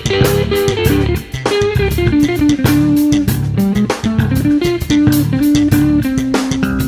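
Background music: an electric guitar playing a melodic lead over bass guitar and a steady drum beat.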